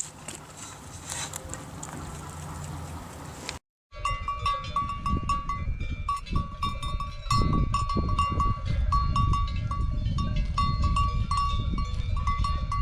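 Livestock bells clanking over and over, many strikes ringing at several fixed pitches, over a low rumbling noise. Before a short break about four seconds in, there is only a low steady hum.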